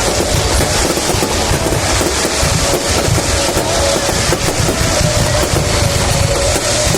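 Fireworks display: a dense, continuous barrage of crackling and popping over a low rumble.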